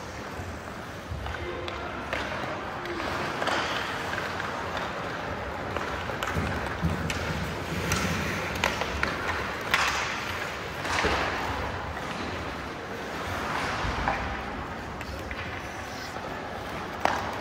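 Ice hockey play in a rink: skate blades scraping the ice, sharp clacks of sticks and puck, and voices calling across the hall.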